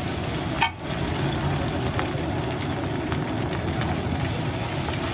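A thin egg omelette sizzling in butter on a large flat iron tawa: a steady hiss under a low background rumble, broken by a short dip less than a second in.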